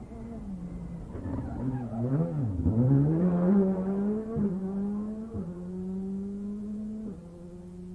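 Rally car engine slowing into a tight bend, then accelerating away hard, its pitch climbing in each gear and dropping at three quick upshifts. Loudest as it passes close, then fading as it pulls away.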